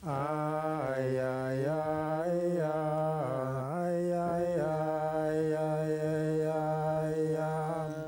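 Inuit ajaaja song: a single unaccompanied voice sings one long continuous phrase, holding notes and stepping and gliding between a few low pitches, and breaks off at the very end.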